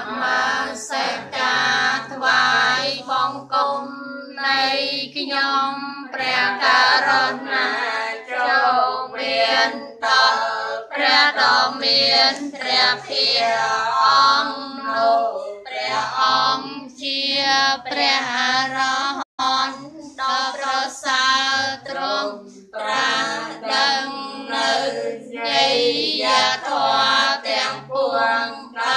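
Female voices singing a Buddhist devotional chant-song in unison over a steady low accompaniment.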